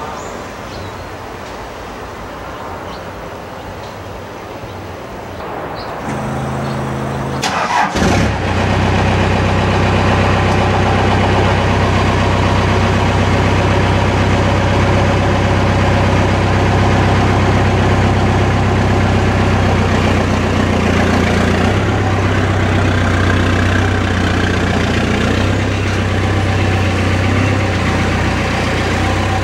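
Ford pickup truck engine cranked and catching about eight seconds in, then running steadily at idle; the engine note changes in the last few seconds as the truck pulls away.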